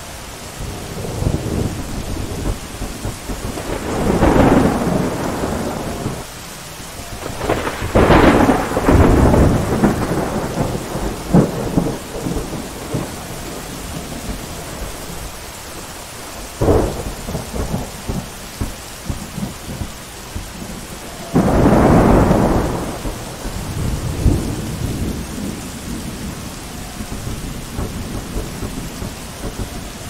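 Thunderstorm: steady rain with thunder rumbling several times. The loudest peals come about eight seconds in and again about twenty-two seconds in, with shorter, sharp cracks in between.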